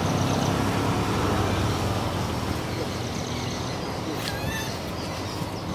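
Steady low outdoor background rumble, with a short high-pitched squeal about four seconds in.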